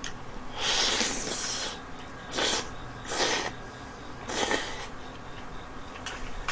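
Instant noodles being slurped into the mouth: one long slurp about a second in, then three shorter slurps.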